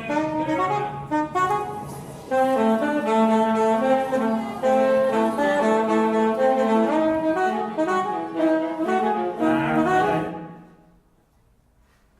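Single-reed wind instrument and viola playing sustained notes together in contemporary concert music, the pitches shifting every second or so. The sound fades out near the end into a brief near-silence.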